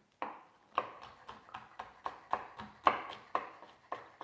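Chef's knife slicing bell pepper into strips on a wooden cutting board: a quick, even run of knife taps on the board, about four a second, starting just after the beginning.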